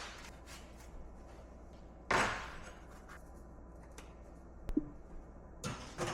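Light handling noises: a brief swish or rub about two seconds in, a short knock a little before five seconds, and another swish near the end, over a faint steady hum.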